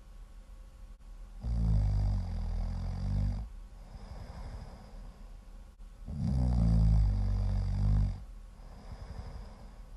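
Loud snoring: two long snores, each about two seconds, one starting about a second and a half in and another about six seconds in, with quieter breathing between them.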